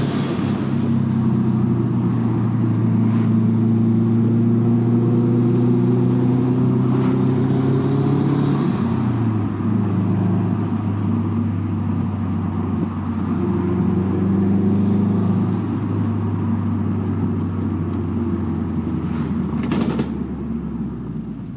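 Turbocharged 2.5-litre flat-four of a Subaru WRX running under light throttle, heard from inside the cabin. The engine note climbs slowly, drops about a third of the way in, climbs again a little past halfway and falls back. A few brief sharp clicks are heard along the way.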